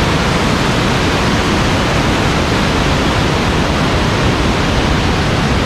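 Loud, steady rush of a rain-swollen mountain stream raging through a narrow rocky gorge.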